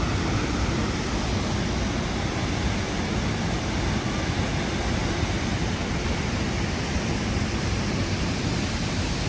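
High Force waterfall on the River Tees: a steady, even rush of falling water.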